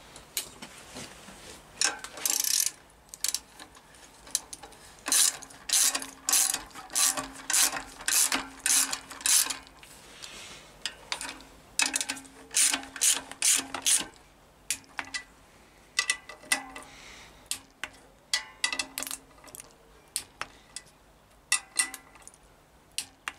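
Socket ratchet wrench clicking in repeated short bursts of rapid ticks as the clutch cover bolts are turned on the flywheel, with brief pauses between bolts.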